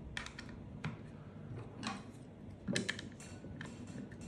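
Faint, irregular clicks and taps of a screwdriver turning the front magazine screw of a Steambow AR-6 Stinger II crossbow to loosen it, with light knocks as the crossbow is handled.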